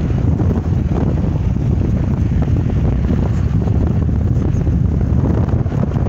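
Steady wind buffeting the microphone of a moving car, with road noise underneath.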